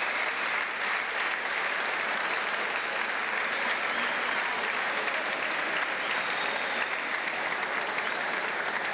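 Audience applauding steadily, a dense continuous clapping.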